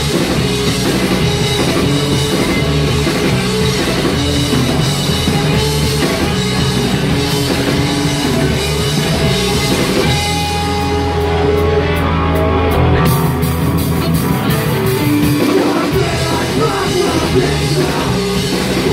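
Live rock band playing loud: distorted electric guitar, bass guitar and drum kit, with shouted vocals. About halfway through the cymbals drop away for a few seconds while the bass and guitar carry on, then the full band comes back in.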